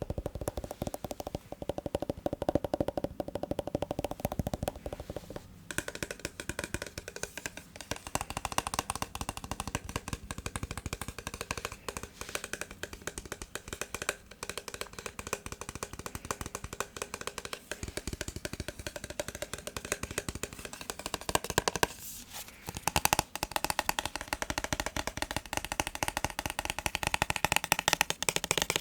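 Fast, continuous tapping on a massage gun, a dense rapid patter of clicks that breaks off briefly about five seconds in and again a little past twenty seconds.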